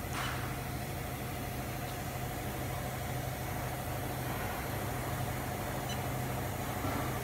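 Steady mechanical hum of a vertical form-fill-seal packing machine running, with a constant low drone and a higher steady tone, and a faint click just after it begins.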